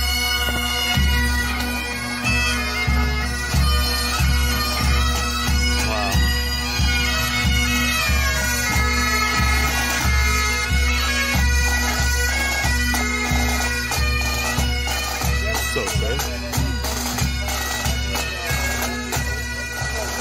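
Marching pipe band playing: massed Highland bagpipes with their steady drones under the chanter melody, and a bass drum beating about one and a half times a second.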